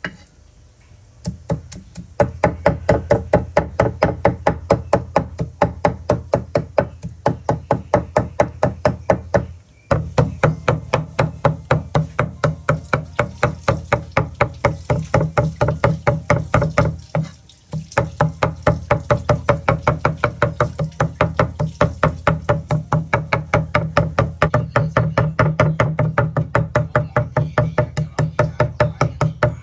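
Rapid, steady chopping of a knife on a chopping board, several strokes a second in long runs, as fermented fish is minced for a dip. The chopping pauses briefly twice, about a third of the way in and a little past halfway.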